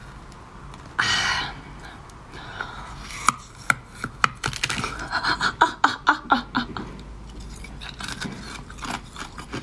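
Teeth biting and crunching into a hard, egg-shaped block of green ice that resists being bitten through. A strained breath comes about a second in, and from about three seconds on there is a run of sharp cracks and crunches as it gives way.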